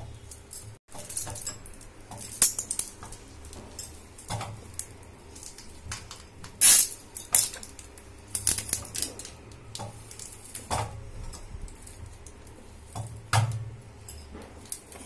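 Stainless-steel screw-type idiyappam press clinking and clanking as its handle wheel is turned to squeeze hot steamed rice idlis into noodles. Scattered sharp metal clanks, the loudest about halfway through.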